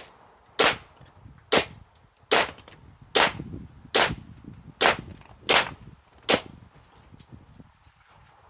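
Umarex Ruger SR1911 airsoft pistol firing a string of about nine sharp shots, a little under one a second, into a pellet trap. The shots stop after about six seconds.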